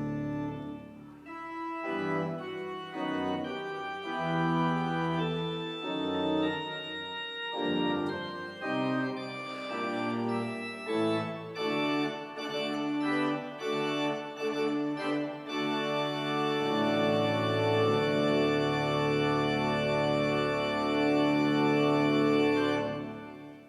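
Organ playing a slow piece in sustained chords, closing on a long held final chord that stops near the end.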